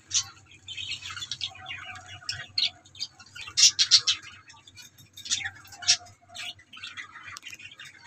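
Budgerigars and zebra finches calling in an aviary: many quick, high chirps and chatter, with a few spells of short nasal calls. A low, steady hum runs underneath.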